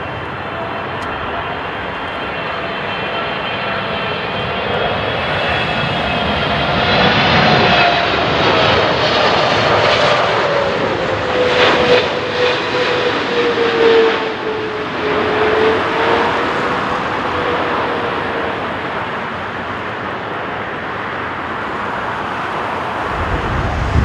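Boeing 777-300ER airliner's jet engines on final approach, passing low overhead: a steady whine that grows louder, peaks about halfway through with its pitch drifting down, then fades away.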